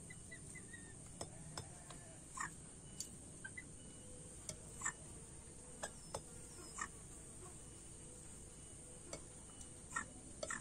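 Scattered light taps and clicks of hybrid green pheasant x kampung chicken beaks pecking feed from a plastic dish and the ground, a dozen or so irregular strikes over a faint steady background.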